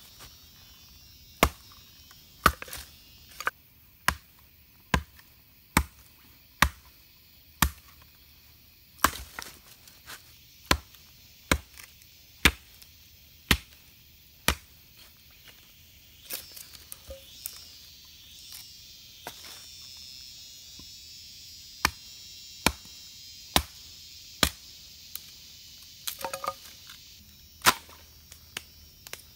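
Axe blows splitting an upright log of firewood: sharp single knocks about one a second, then a pause of several seconds before a second run of blows.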